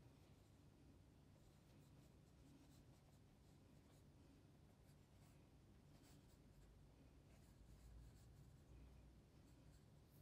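Faint scratching of a pencil drawing on paper, in short irregular strokes.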